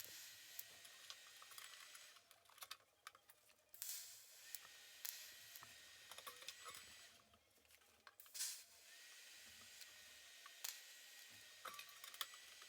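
TIG welding arc on stainless steel tubing, a faint steady hiss with a thin high tone. It is struck and stopped in runs of a few seconds, three times, each strike opening with a short louder burst: tack welds being laid.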